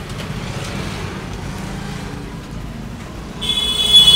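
Steady rumble of road traffic, then a loud, high-pitched vehicle horn sounding for about a second near the end.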